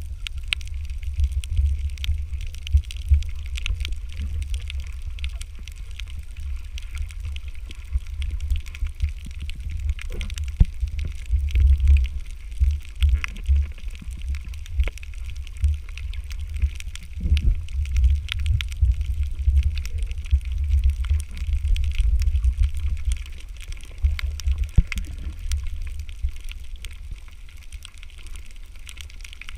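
Muffled underwater sound heard through a camera housing: a low, uneven rumble of water moving against the camera as it swims over the reef, with a faint crackle of fine clicks.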